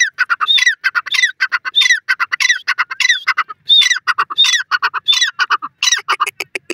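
Grey francolin calling: a loud phrase of rapid, sharp notes with a high, downward-curving note, repeated about every 0.6 s, roughly ten times. Near the end the phrases break into a faster, lower stutter.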